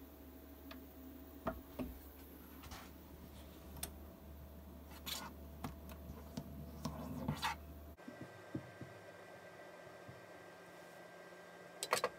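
Faint steady low hum with scattered light clicks and taps; the hum drops away about eight seconds in, and a short cluster of clicks comes near the end.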